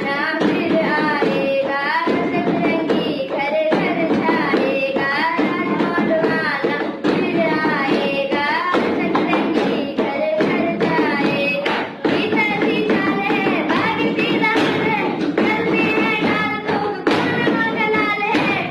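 A solo voice singing a Hindi song in long, gliding melodic lines over a steady accompaniment with a light beat.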